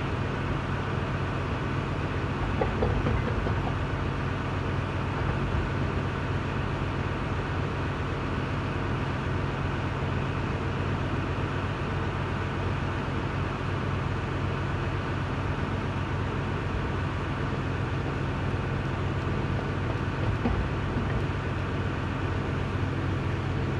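Steady machine drone: a low hum with several even tones held at one level, with a couple of faint knocks about three seconds in and again near the end.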